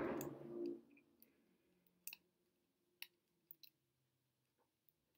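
Faint, sharp clicks from hands twisting a loc close to the microphone, a few of them about two, three and three and a half seconds in. A short low hum-like sound comes right at the start.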